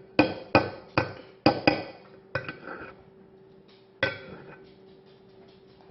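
Sharp knocks and clinks of a utensil against a pot or pan: about six in the first two and a half seconds, then one more about four seconds in.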